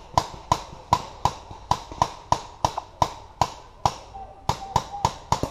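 Paintball marker firing a steady string of sharp shots, about three a second.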